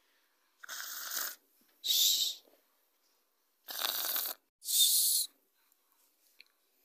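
A person imitating snoring with exaggerated breathy in-and-out breaths: two in-and-out pairs, the second pair about three seconds after the first.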